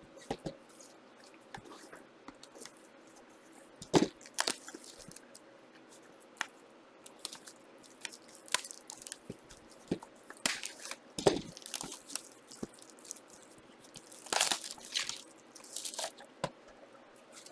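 Trading-card packs and cards being handled: scattered crinkles, crackles and clicks of wrappers and cards, the loudest about four seconds in and busier in the second half.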